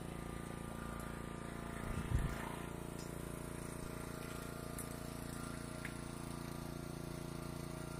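A small engine running at a steady speed, with a brief low thump about two seconds in.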